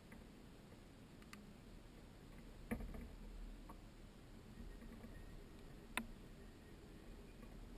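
Near silence: a faint steady hiss with two soft knocks about three seconds apart.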